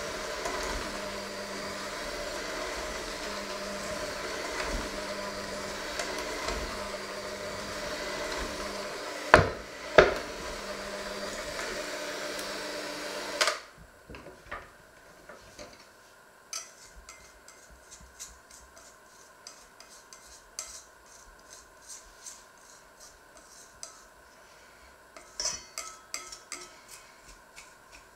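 Electric hand mixer with dough hooks running steadily as it kneads dough in a stainless steel bowl, with two sharp knocks about nine and ten seconds in as the hooks strike the bowl. The motor cuts off suddenly about halfway through. After that come only scattered light clicks and scrapes against the metal bowl as the dough is worked by hand.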